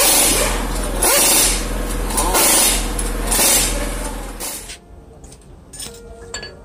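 Spray hissing in repeated bursts, about one a second, stopping about five seconds in, followed by a few light clinks. Background music plays throughout.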